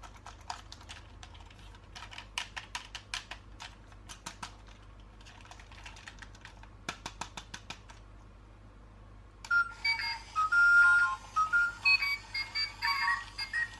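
Irregular clicks and crackles of plastic packaging being handled, then about nine seconds in a battery-powered toy starts playing a beeping electronic tune, louder than the clicks.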